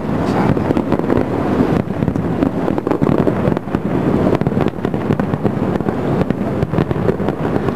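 Fireworks going off: a dense, rapid crackle of many small pops and bangs.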